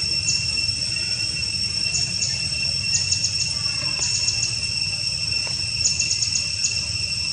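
Woodland insects: a steady high-pitched drone, with small groups of quick, sharp chirps every second or so over a low rumble.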